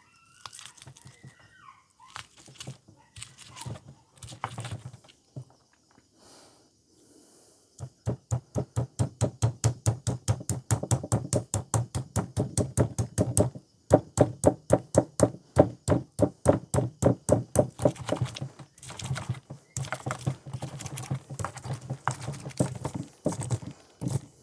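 Pestle pounding raw long beans, chillies, garlic and salt in a mortar into a coarse pickle paste: a few scattered knocks, then from about eight seconds a steady run of sharp strikes, about three or four a second, pausing briefly near the middle.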